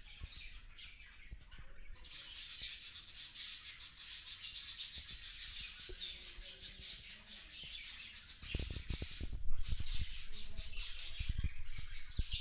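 Kombai puppy eating soft mashed food from a stainless-steel bowl, with low knocks and thumps in the last few seconds, over a steady high-pitched chirring that pulses several times a second and drops out briefly about nine and a half seconds in.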